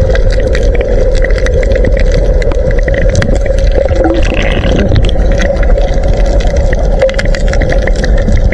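Underwater noise picked up through an action camera's waterproof housing: a steady low rumble with a constant drone and scattered sharp clicks, and a short hiss about four seconds in.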